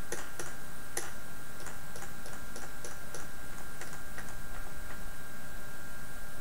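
Light, sharp ticks, about three a second and not quite even, thinning out after about five seconds, over a faint steady whine.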